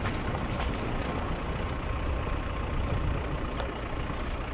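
Steady low drone of a motor vehicle's running engine, heard from inside the vehicle.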